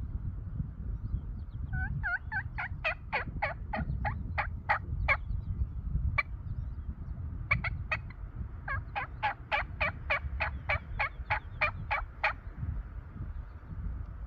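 Turkey yelping: a long run of short, evenly spaced yelps at about four a second, a few scattered single yelps, then a second long run. A steady low rumble sits underneath.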